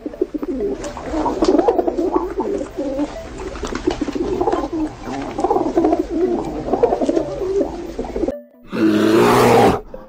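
A flock of rock pigeons cooing, many overlapping warbling coos for about eight seconds. After a short gap near the end comes a loud roar of about a second from a brown bear.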